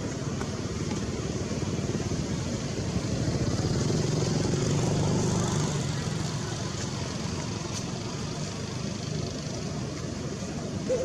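Steady rumble of a motor vehicle's engine, growing louder for a few seconds in the middle.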